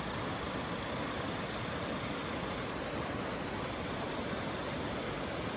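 Steady, even rushing of a nearby stream, with faint steady high-pitched tones above it.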